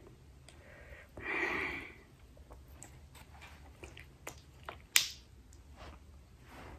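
Close-up eating sounds: a brief chewing sound just over a second in, then scattered small clicks and cracks of shellfish being picked apart for its meat, with one sharper snap about five seconds in.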